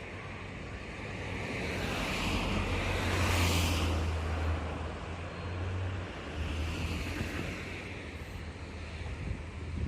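Vehicles passing close by at a level crossing. One swells to a peak about three and a half seconds in and fades, and a smaller second pass follows about seven seconds in, over a steady low hum.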